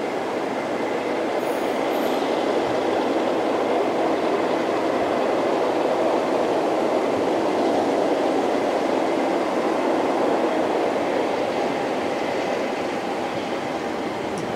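Pair of British Rail Class 50 diesel locomotives with English Electric V16 engines, running light engine and approaching. Their steady engine note carries a faint high whine and grows gently louder towards the middle.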